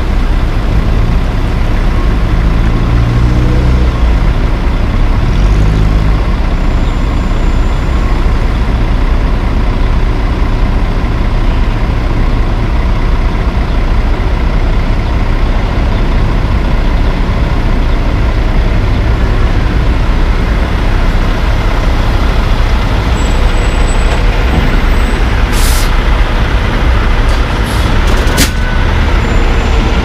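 Heavy dump trucks' diesel engines running under a constant roar of gusty wind on the microphone, with one engine's pitch rising and falling a few seconds in. Two short, sharp bursts of noise come near the end.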